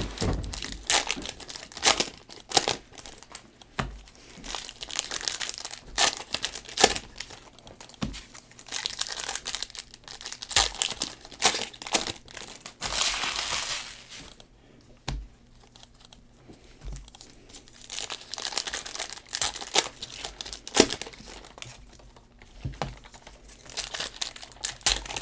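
Plastic wrappers of Panini Elite basketball card packs crinkling and tearing as the packs are ripped open, one after another, in a run of sharp crackles. About 13 seconds in there is a longer stretch of steady crinkling.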